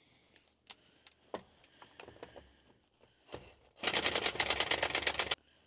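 Light clicks and taps as the air filter housing over the Mitsubishi Minicab's three-cylinder engine is undone. About four seconds in comes a loud, rapid mechanical clicking of about a dozen strokes a second, lasting about a second and a half.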